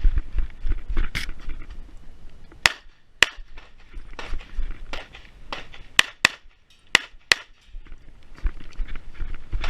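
9mm Glock 45 pistol firing a string of about ten sharp shots, some in quick pairs, during a shooting-stage run.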